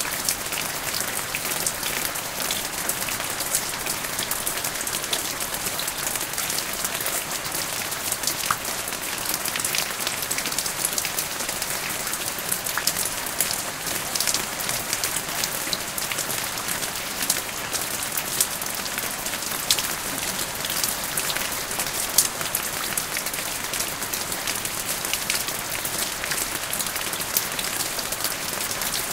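Steady rain falling, with many small drops ticking on hard surfaces.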